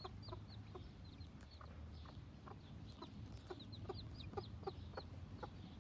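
Day-old chicks peeping in short, high, falling cheeps, several a second, with a mother hen's soft low clucks among them; faint.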